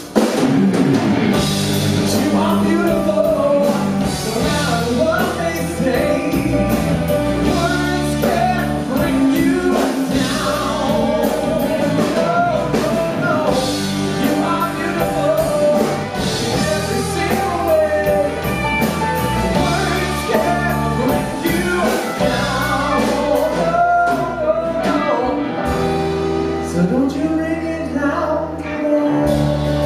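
A man singing a rock song into a microphone, backed by a live band with drums.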